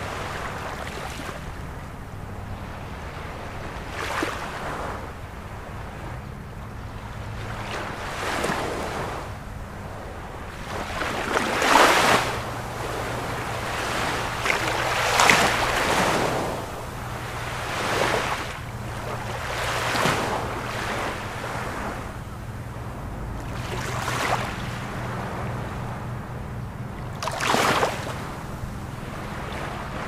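Sea waves breaking on a shore, one crash swelling and washing back every two to four seconds over a steady surf wash; the loudest breakers come about halfway through.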